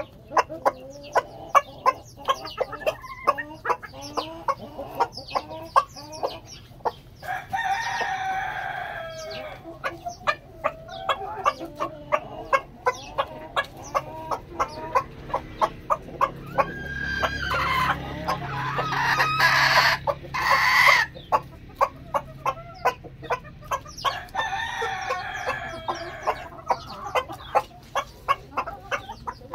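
Crested chickens pecking at a head of lettuce: quick sharp pecking clicks over a steady clucking. A few drawn-out calls rise out of it, the loudest about twenty seconds in.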